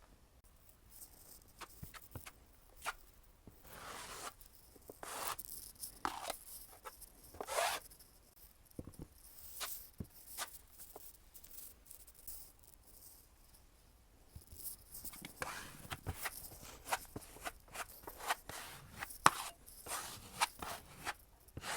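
Drywall hand tools working a cracked joint: irregular scrapes and sharp taps of a knife against the wall and compound, a few longer scraping strokes among them.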